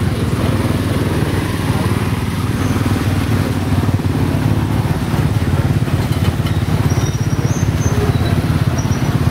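Motorcycle engine of a motorbike-drawn tuk-tuk running steadily while under way, heard from the passenger carriage, with the rapid low pulsing of the engine and road noise from surrounding motorbike traffic.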